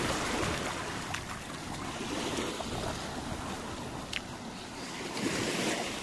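Small waves lapping and washing up on a sandy beach shore, with a wash that swells louder about five seconds in.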